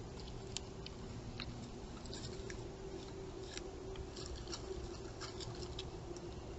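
Quick, scattered clicks and crackles from a small animal close to the trail camera's microphone, over a steady low hum.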